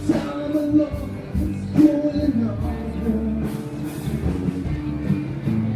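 Rock music from a live band on an outdoor stage, with a singer, a steady bass line and drum beats, heard at a distance across open grounds.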